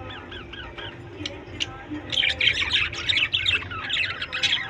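A colony of budgerigars chirping and chattering, a few calls at first and then many birds at once, louder, from about two seconds in.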